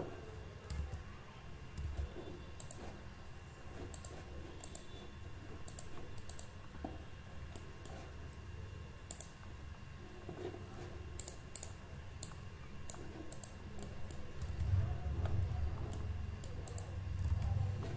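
Scattered, irregular clicks of a computer mouse and keyboard, some in quick pairs, over a faint steady hum.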